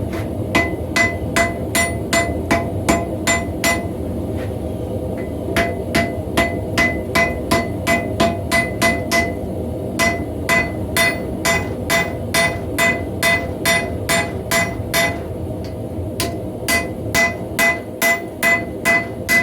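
Hammer blows on hot steel over an anvil, about three a second in runs broken by short pauses, each blow with a ringing note, as the loop of a wrapped-eye axe is hammered closed. A gas forge runs steadily underneath.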